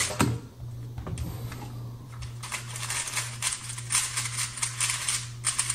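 3x3 speedcube being turned very fast during a solve: a rapid, dense clatter of plastic layer clicks starting about two seconds in, after a few scattered clicks and taps.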